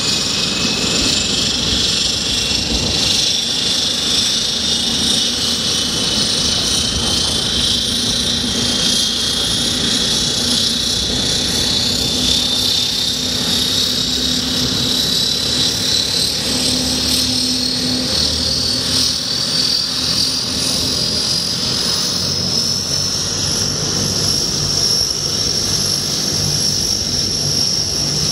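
Convair 580's two Allison turboprop engines running with propellers turning: a high turbine whine that rises slowly in pitch throughout, over a low propeller drone.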